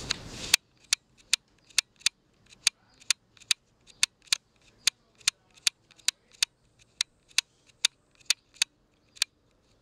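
A series of about twenty sharp, separate clicks, roughly two a second and unevenly spaced, with almost nothing heard between them; they stop shortly before the end.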